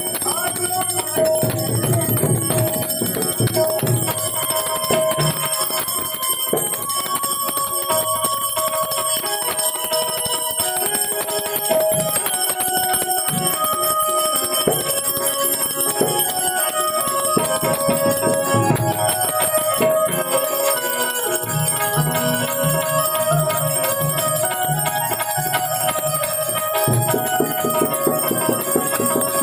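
Instrumental devotional folk music: a harmonium plays a stepping melody over steady ringing from small hand cymbals, with drum beats underneath.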